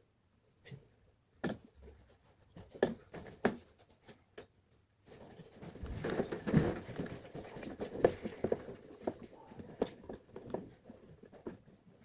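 Handling noise from working on wiring: a few sharp clicks and taps, then from about five seconds in a stretch of rustling with many small clicks, as of hands arranging wires and small plastic parts.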